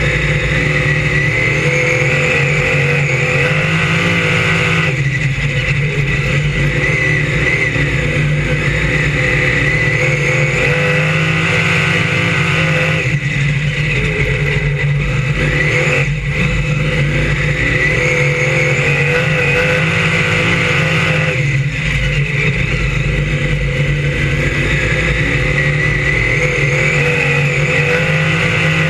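On-board sound of a Brisca F1 stock car's V8 engine at racing speed. The pitch rises steadily as it accelerates, then drops abruptly as the throttle comes off, about every eight seconds as the car laps the oval.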